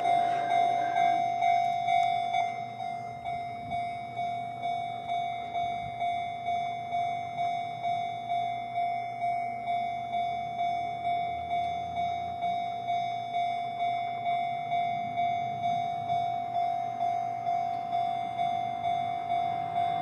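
Japanese electronic railroad-crossing warning bell ringing steadily on one pitch, about two strokes a second, signalling that a train is approaching. It is louder for the first two seconds, with a rushing noise under it that fades away.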